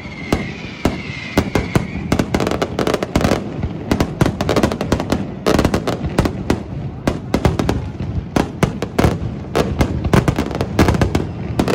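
Fireworks display: a dense, rapid run of bangs and crackles from aerial shell bursts, many reports a second. A high whistle fades out in the first two seconds.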